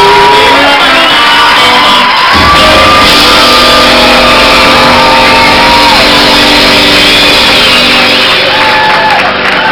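Live country band playing, a loud audience recording of the concert, with shouts from the crowd over the music.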